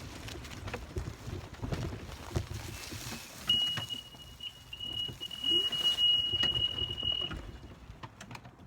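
A single steady high tone held for about four seconds, starting a little before the middle, over low rumbling and scattered knocks.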